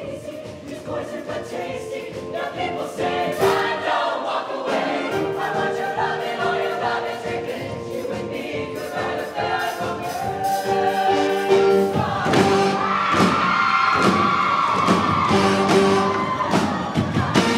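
Mixed-voice show choir singing with a live band, drums keeping a steady beat. The music builds louder, with a long high note held through the second half.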